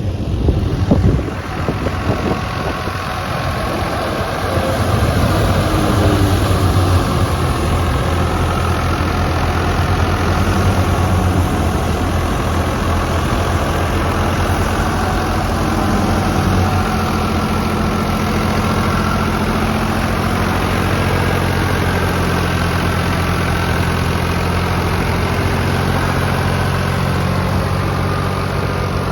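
Wheat threshing machine and the engine driving it running steadily, with a continuous hum and the rush of the threshing drum, and a brief knock about a second in.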